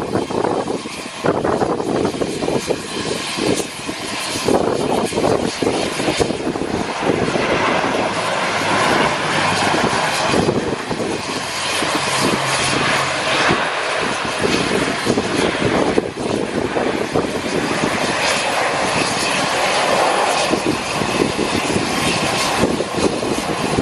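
Lockheed C-130 Hercules turboprop engines running, a loud and steady noise without pause.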